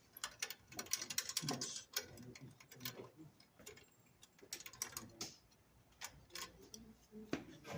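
Irregular light clicks and taps of parts being handled and fitted back onto a Jet belt sander during reassembly. The clicks are thickest in the first two seconds and come more sparsely after that.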